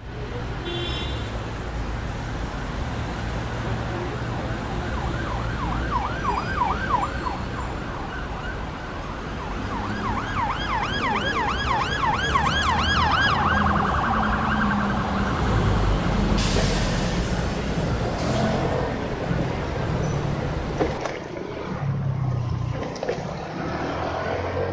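Road traffic with vehicle engines running, and an emergency-vehicle siren yelping in fast rising-and-falling sweeps, about four a second. The siren comes twice: about five to seven seconds in, and again from about ten to fourteen seconds in.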